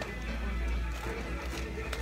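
Background music playing steadily, with a few short crackles of a plastic toy bag being pulled open.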